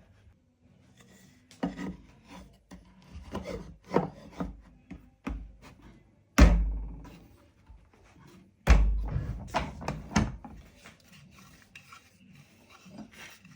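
Hand tools working oak and ash: a run of short rasping strokes on wood, then two heavy wooden knocks about two seconds apart, followed by a few more strokes.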